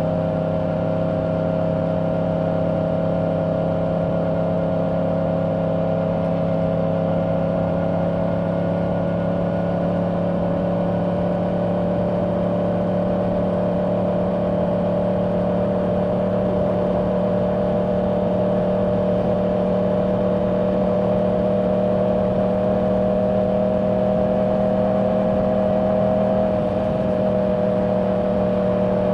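2024 Yamaha R1's crossplane inline-four running at steady cruising revs through its stock exhaust, with wind noise. The engine note holds nearly constant, dropping slightly near the end.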